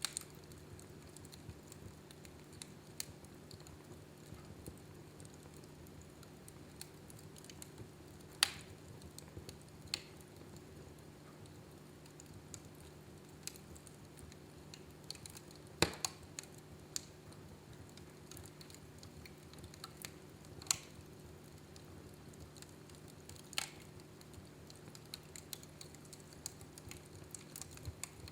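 Wood fire burning in a fireplace: scattered crackles and pops over a faint low hum, with a few louder pops about eight, sixteen, twenty-one and twenty-four seconds in.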